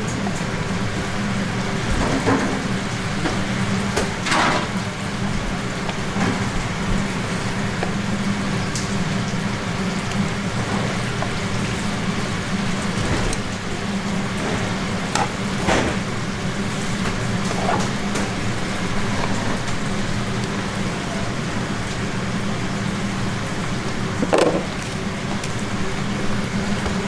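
Busy food-stall kitchen noise: a steady hiss over a low hum. A few short clinks of metal tongs and utensils stand out, the clearest about four seconds in, around sixteen seconds and near the end.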